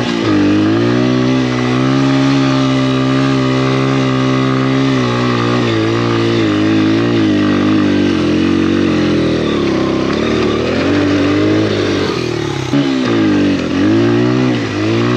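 Honda XR100R dirt bike's single-cylinder four-stroke engine running under load as the bike is ridden. The engine note holds steady for several seconds, wavers in the middle, and near the end drops and climbs sharply several times.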